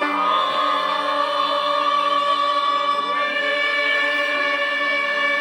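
Church choir singing a long held chord of a hymn in several parts, moving to a new chord about three seconds in.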